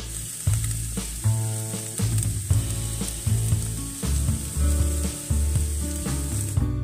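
Ground beef sizzling in a frying pan: a steady hiss that cuts off abruptly near the end, over background music.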